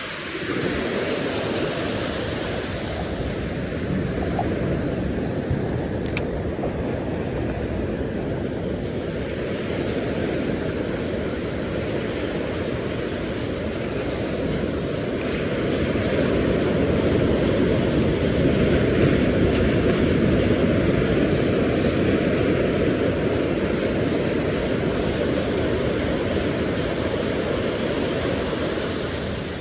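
Steady rumbling wash of surf with wind buffeting the microphone, swelling louder about halfway through, with a single small click near the start.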